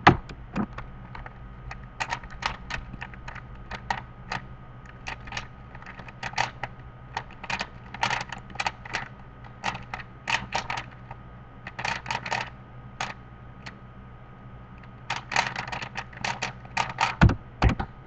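A 3x3 speedcube being turned rapidly: bursts of quick plastic clicking and clacking, broken by short pauses. A sharp knock at the start, and two loud thumps near the end as the cube is set down on the wooden table.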